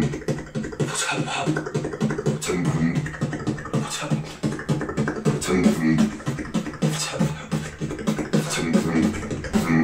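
Solo vocal beatboxing: a fast, steady beat of sharp snare- and hi-hat-like mouth clicks over a low hummed bass line.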